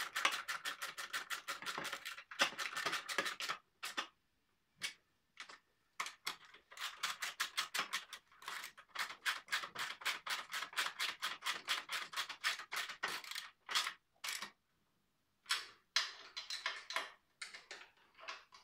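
A 10mm ratchet clicking in quick runs, about ten clicks a second with short breaks, as nuts are wound onto bolts to tighten them.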